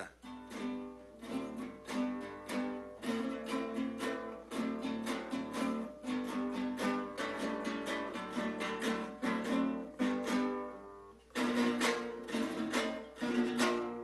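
Cinco larense, a small Venezuelan guitar with six strings in five courses tuned D–G–C–E–A, strummed in a quick, rhythmic run of chords, with a short break about eleven seconds in.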